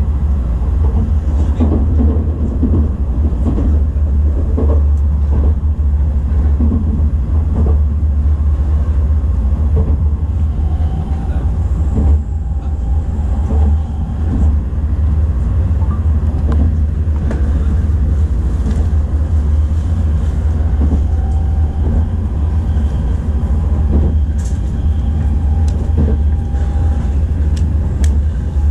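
Tokaido Shinkansen bullet train running, heard inside the passenger car: a steady low rumble with scattered clicks and knocks from the wheels on the track.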